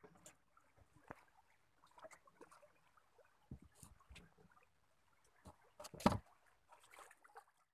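Faint scattered knocks and rustles, with one much louder thump about six seconds in.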